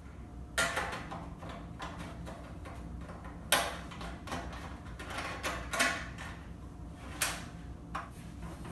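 About half a dozen sharp clicks and knocks from hands handling parts of a mini bike, the loudest about three and a half seconds in, over a low steady hum.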